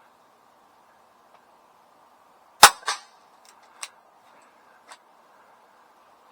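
A single shot from a CO2 air pistol, a sharp crack about two and a half seconds in, followed a moment later by a quieter second crack and then a few faint clicks.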